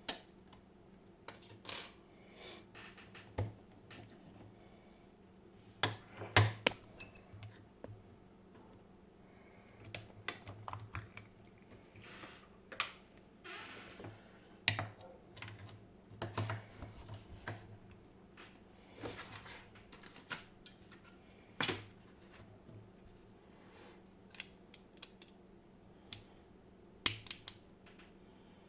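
Irregular small metallic clicks and clacks of a dimple lock cylinder and tools being handled and worked on, with the sharpest knocks about six seconds in, a little past twenty seconds and near the end.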